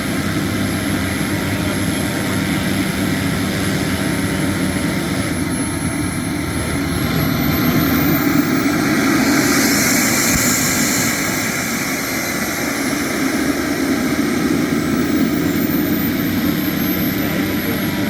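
KingTech K102 model jet turbine running on the ground, with a high whine over a steady rush. About seven seconds in its whine climbs steeply and it gets louder as it is throttled up, then the whine sinks back toward idle in the second half.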